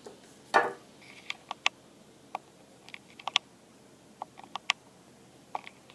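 Irregular light clicks and ticks, about a dozen, scattered unevenly, with one short, louder scuffing noise about half a second in.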